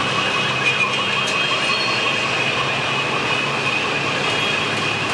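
A large pack of small motorcycles riding past together: a steady, dense drone of many engines at once.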